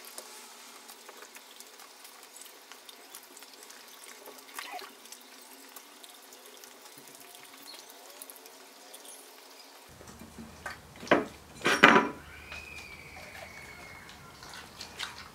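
A Golden Retriever and a German Shepherd eating spaghetti: quiet wet slurping and chewing, with two loud knocks about three quarters of the way in.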